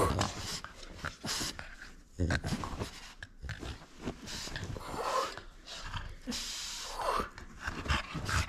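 French bulldog's short, irregular bursts of noisy breathing and throat sounds as it holds onto a rubber ring toy that a hand is trying to take.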